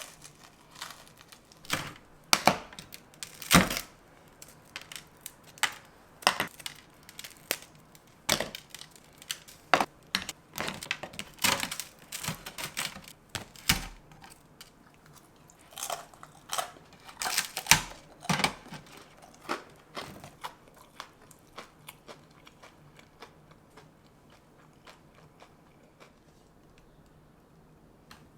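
A series of irregular sharp clicks and knocks, close together at times, that die away for the last several seconds.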